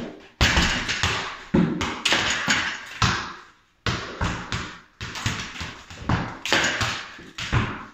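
Soccer balls being kicked into a rebounder net and bouncing back onto a hardwood floor: a quick, irregular series of thuds and slaps, each trailing off in the room's reverberation, with a brief lull about three and a half seconds in.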